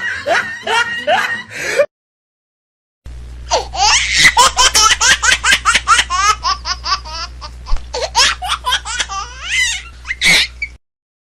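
Laughter sound effects: one hearty laugh breaks off about two seconds in. After a second of silence, a second, high-pitched laugh starts with rapid 'ha-ha' pulses over a steady low hum and ends in a squeal.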